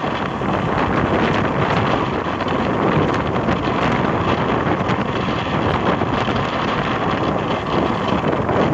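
Wind buffeting the microphone of a camera on a moving motorbike: a steady, dense rush of wind noise, with the bike's running and road noise beneath it.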